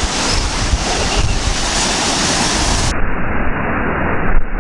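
Baltic Sea surf washing onto the shore, with strong wind buffeting the microphone in a steady low rumble.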